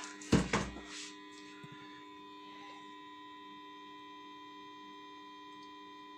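A thump about half a second in, then the power transformer of a valve-amplifier power supply humming steadily under power, with several steady tones. The owner calls the hum terrible and intends to soak the transformer in epoxy to stop it.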